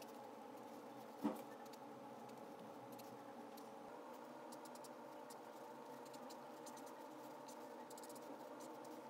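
Faint scratching of an alcohol marker's brush tip stroking across sketchbook paper, in short groups of strokes, over a steady low hum. One sharp knock about a second in is the loudest sound.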